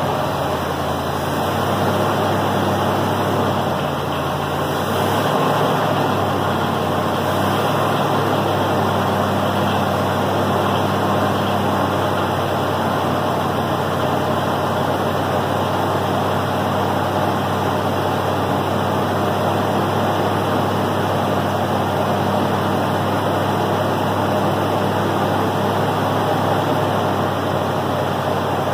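A 1954 Studebaker Commander's V8 engine idling, back running after sitting dormant for about 40 years. The idle wavers a little in the first few seconds, then settles to a steady run.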